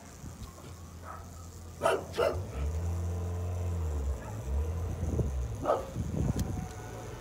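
A dog barking three times: twice in quick succession about two seconds in, then once more near the end. Underneath is a low steady hum that swells and bends in pitch in the middle.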